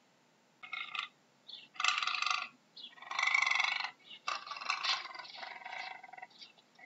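Puma calling: four short, high-pitched calls with gaps between them, the last one longer and fading out.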